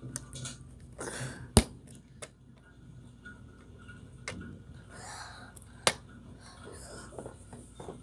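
Plastic Lego bricks clicking and knocking as pieces are handled and pressed together, with two sharp clicks about one and a half and six seconds in, fainter clicks and soft rustling in between.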